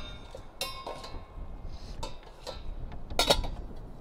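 Stainless steel camping pots and lids clinking as they are nested back together: a few light metal knocks, one ringing briefly, with the loudest knock near the end.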